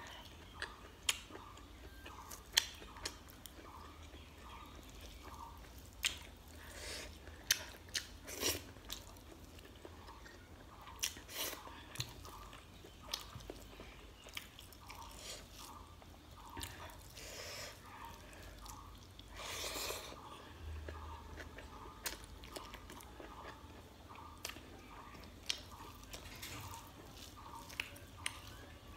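Close-miked chewing of a mouthful of rice and chicken curry, with many sharp wet clicks from the mouth spread irregularly throughout.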